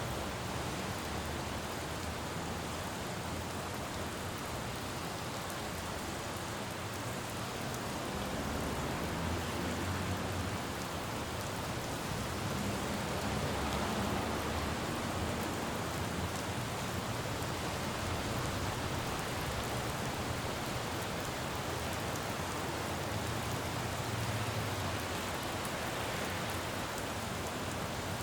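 Steady rain falling on a city road, with the low rumble of passing traffic swelling and fading several times.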